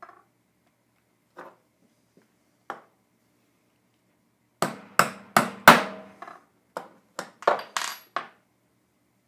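Small hammer tapping a steel pin into a rifle's gas block to fix the gas tube: about ten sharp metallic taps in quick succession, starting just under halfway through, after a few light clicks of the parts being handled.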